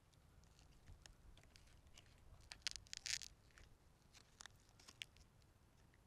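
Near silence, with faint scattered crackles and clicks and a short, denser cluster of them about three seconds in.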